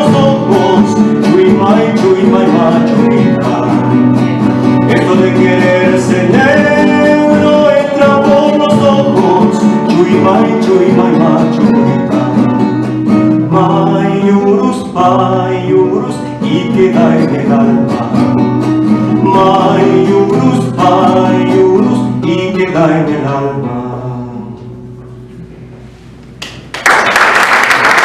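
Male voice singing a huayno over nylon-string classical guitar accompaniment; the music fades out and ends about 26 seconds in, and audience applause breaks out just after.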